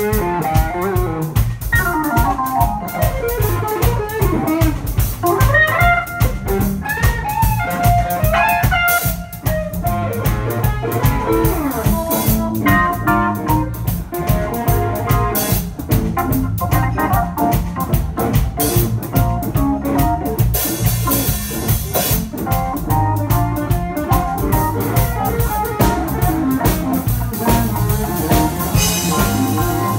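Live blues band playing: electric guitar, organ sound from a keyboard, and a drum kit keeping a steady beat. Over roughly the first ten seconds the lead line slides and bends between notes.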